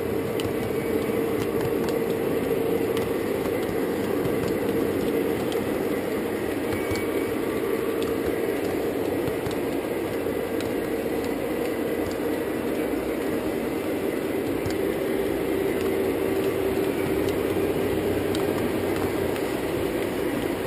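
O scale high-rail model train rolling along its track, heard from the flat car it pushes: a steady running hum and rumble with occasional faint clicks.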